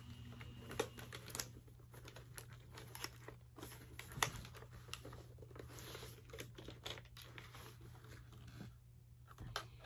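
Scattered faint clicks and taps of a plastic Polaroid instant camera being handled and its buttons pressed, a few of them slightly louder.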